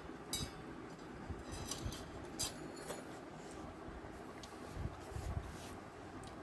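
Someone eating a rice-and-curry meal: wet chewing and mouth sounds, with a scatter of short clicks and faint clinks against a plate.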